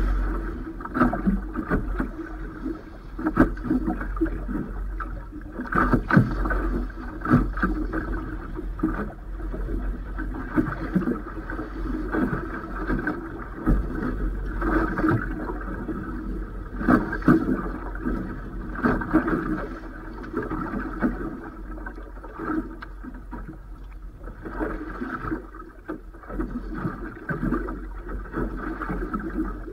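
Waves slapping and knocking irregularly against the hull of a Robalo 24 boat, over a steady low wind rumble on the microphone.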